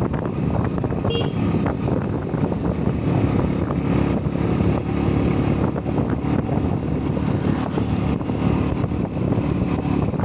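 Wind buffeting the microphone of a phone carried on a moving motorcycle, a steady rushing noise, with the motorcycle's engine running underneath.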